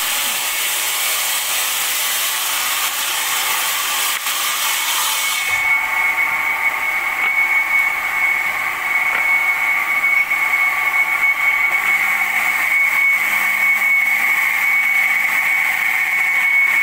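Granite cutting machine running steadily. A broad hiss drops away about five seconds in, leaving a steady high whine.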